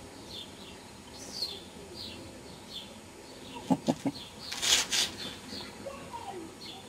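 Garden birds chirping, short falling high notes repeating about every half second. A little past halfway come three quick low knocks, then a brief loud hissing rush, the loudest sound here.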